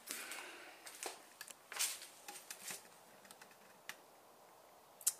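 Scattered faint clicks and short scuffing sounds at irregular intervals, the loudest scuff a little under two seconds in, with no steady machine running.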